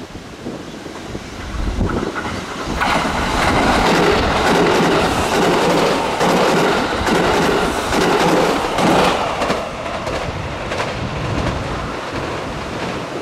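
JR West 681/683-series limited express electric train passing at speed, its wheels clattering over rail joints and points. The sound builds about two seconds in, is loudest through the middle, and eases off after about ten seconds as the train moves away.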